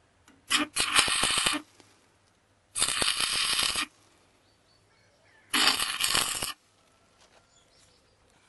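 Stick (MMA) electrode arc welding: three separate arcs of about a second each, tacking two steering tie-rod ends together.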